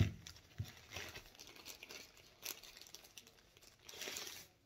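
Clear plastic wrapping crinkling and rustling as a charging brick is worked out of its bag, in irregular crackles with a few soft knocks from handling, louder near the end.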